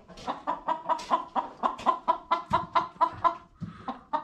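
A flock of laying hens clucking, a quick run of short overlapping clucks, about five a second.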